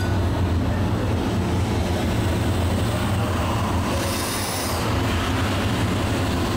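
Steady machinery hum and clatter in the engine room of the 1906 paddle steamer Schiller as its steam engine is opened up to go ahead, with a short hiss about four seconds in.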